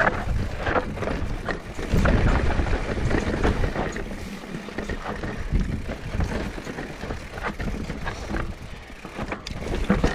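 Mountain bike riding down a dirt trail: tyres on dirt and rock, and the bike rattling with frequent clicks and knocks. Wind buffets the GoPro Hero 9's microphone.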